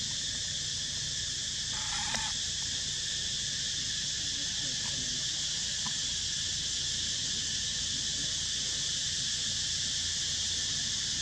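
A steady, high-pitched insect chorus droning without a break. A short faint sound about two seconds in.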